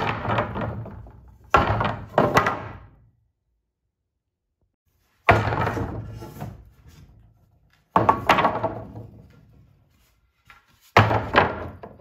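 2x4 lumber boards dropped one after another onto a stack of boards, each landing with a loud wooden knock and clatter that rings briefly. There are about five drops, two in quick succession near the start, then a pause of a few seconds before three more come at intervals of about three seconds.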